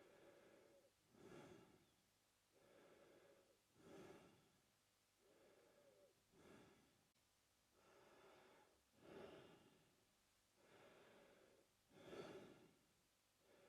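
A man breathing slowly and evenly through his mouth, quiet and close. Each breath cycle is a softer, drawn-out breath followed by a stronger, shorter one, about five cycles in all.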